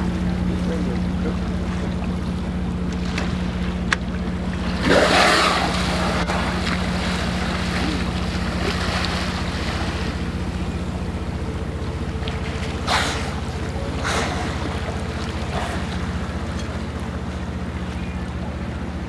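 Steady low drone of a small cruise ship's engine, with water washing along the hull. About five seconds in a loud rushing whoosh rises over it, and two shorter whooshes follow later.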